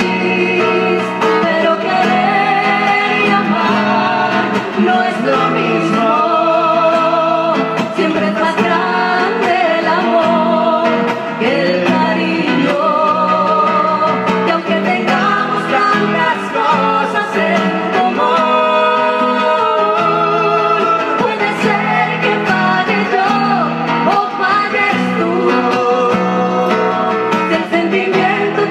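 Live music through a stage sound system: a song with singing over instrumental accompaniment, playing without a break.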